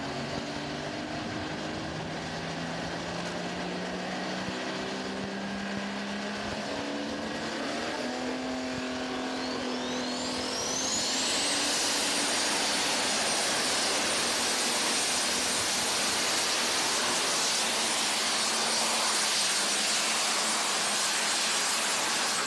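Case IH super stock diesel pulling tractor's turbocharged engine running on the line, its pitch climbing slowly, then spooling up with a fast rising whine about ten seconds in. From there it runs at full power with a steady high turbo whine over the loud engine noise as the tractor pulls.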